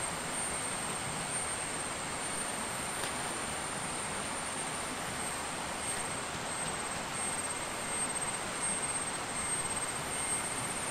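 Steady rush of a forest river, with a high, even insect drone over it and a few faint clicks of camp gear being handled.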